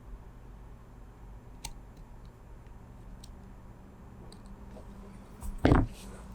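Small objects handled on a workbench: a few faint clicks, then one louder knock near the end, over a low steady hum.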